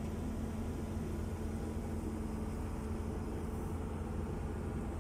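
Steady low hum of a ship's running machinery, even and unchanging throughout.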